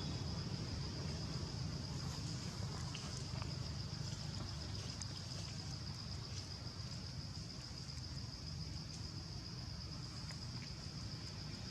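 Steady high-pitched insect drone, slightly pulsing, over a low steady rumble, with a few faint clicks.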